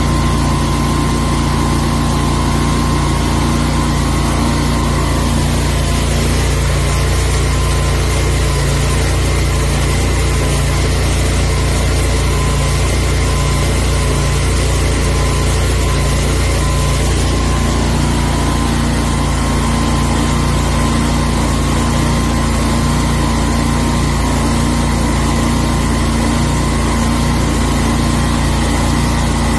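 The 40-horsepower gasoline twin-cylinder engine of a truck-mounted high-pressure sewer jetter, running steadily at a constant speed through its reworked exhaust line.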